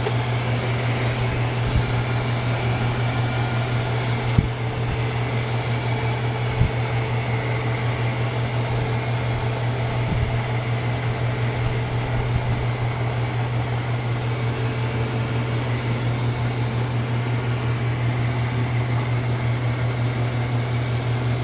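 ILIFE X5 robot vacuum running steadily: a low motor hum with fan hiss and a faint higher whine. A few soft knocks come in the first half.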